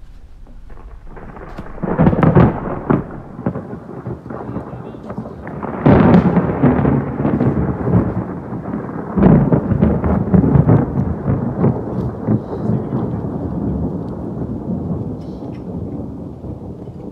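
Loud thunder: three peals about two, six and nine seconds in, each starting sharply and then rumbling on, slowly dying away.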